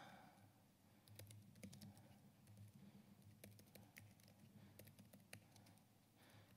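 Faint, irregular typing on a computer keyboard: a quick run of key clicks as code is entered in a text editor.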